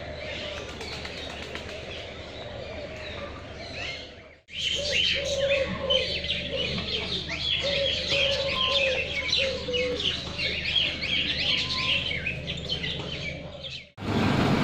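Many aviary birds chirping together in a dense, busy chorus of short high notes, with a lower repeated call underneath. An edit about four seconds in brings a louder stretch of chirping.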